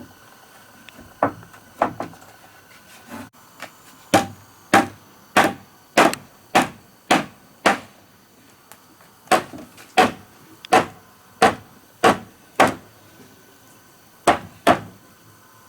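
Repeated blows of a hand tool on wood, about two a second, in runs of half a dozen strikes with short pauses between.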